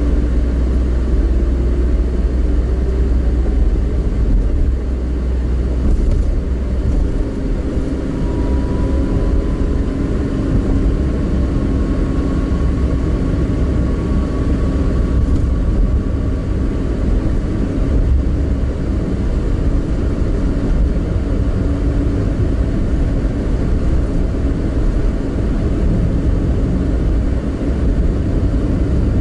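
Car driving along a road: a steady low rumble of engine and tyres, the engine note rising as the car speeds up near the start, and a faint whine slowly climbing in pitch through the middle.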